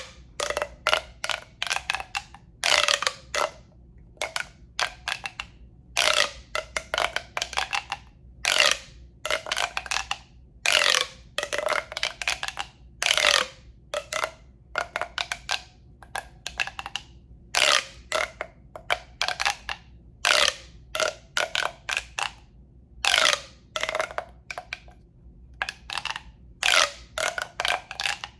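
ASMR sounds made with a tube: an irregular run of short scraping and tapping strokes, each carrying a brief pitched ring, coming in quick clusters with short pauses between them.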